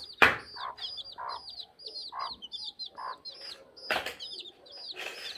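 Chicks peeping in a rapid run of short, high chirps, several a second, with a few low clucks from the mother hen in between. A brief, louder sharp noise comes about four seconds in.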